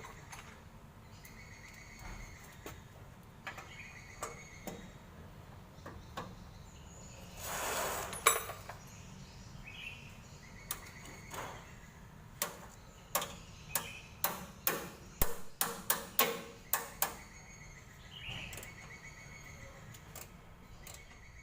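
Irregular sharp clicks and knocks, sparse at first and coming thick and fast in the second half, with a short rushing noise in the middle and faint repeated chirps behind.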